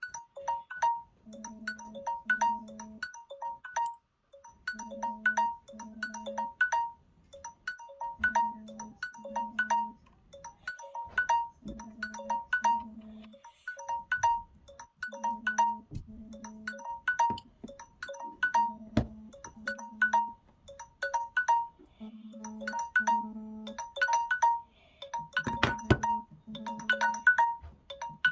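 Samsung Galaxy timer alarm tone ringing: a short electronic melody repeating over and over. A few knocks come now and then, the loudest about three-quarters of the way through.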